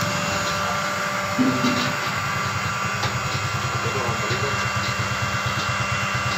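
A machine running steadily, with a rapid, even low throb under a few steady whining tones. A brief louder low sound about a second and a half in.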